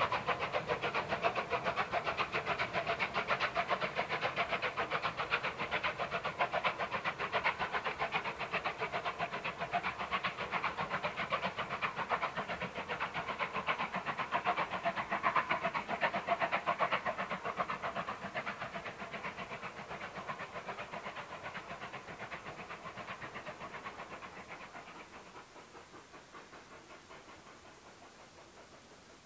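Steam locomotive working hard with a train, its rapid exhaust beats fading steadily as it pulls away into the distance until faint near the end.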